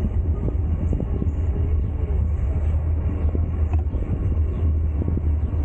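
Mountain bike ride: a steady low rumble of wind on the microphone and tyre noise, with scattered small clicks and rattles.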